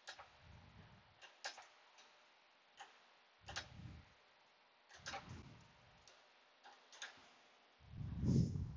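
Ratchet wrench clicking in short, irregular bursts as a 13 mm nut on an AC line fitting is tightened, with a few dull low thumps, the loudest near the end.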